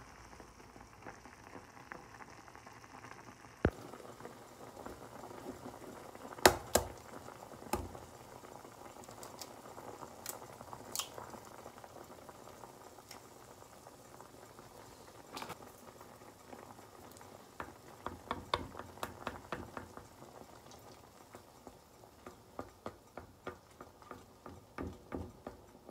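Ramyun noodles boiling in a speckled enamel saucepan, bubbling steadily while chopsticks stir them. A few sharp knocks come about six to eight seconds in. From about seventeen seconds on there is a run of light clicks as the chopsticks tap against the pot.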